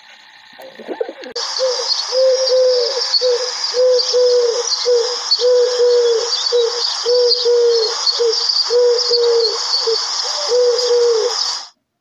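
A dove cooing: a long run of short, low coos, two to three a second, in quick groups. Under it a steady high hiss with faint chirps starts about a second in and cuts off abruptly just before the end.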